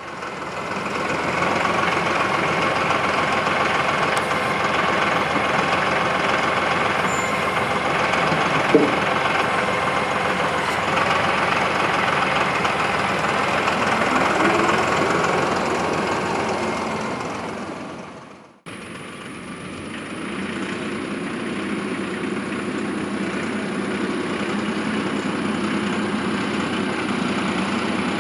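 Compact tractor engine running steadily as its front-loader forks pick up fence posts. About two-thirds of the way through the sound cuts off abruptly and resumes as the tractor drives along carrying the load.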